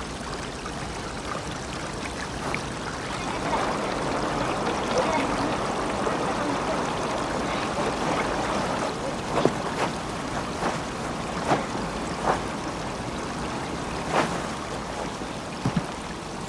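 Shallow, ice-edged stream running over stones, a steady rush of water. In the second half, a few short knocks and splashes from stepping and handling in the water.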